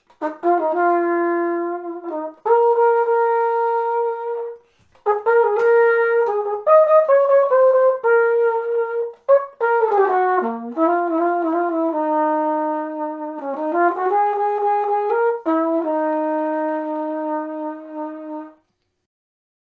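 Flugelhorn playing a slow melody of held notes with a smooth tone, some notes slurred into the next, with one short break about a third of the way through.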